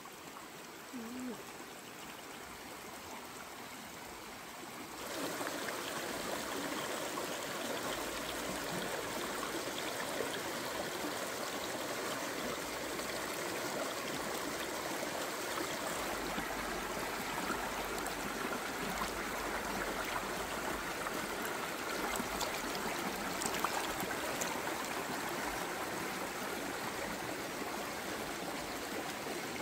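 River water flowing, a steady rush that gets louder about five seconds in.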